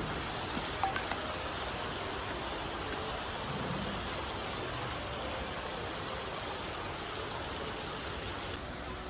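Steady, even rushing background noise in a large hotel lobby, with a couple of light clicks about a second in as a woman in sandals climbs marble stairs.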